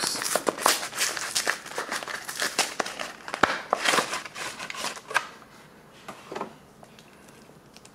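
An MRE entree's cardboard box being opened and its dark green laminated retort pouch slid out: cardboard scraping and rustling, crinkling of the pouch and sharp little ticks. It dies down about five seconds in, leaving a few faint taps.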